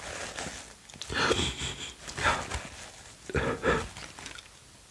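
A man crying into a tissue: three short sobbing bursts with sniffles, about a second apart.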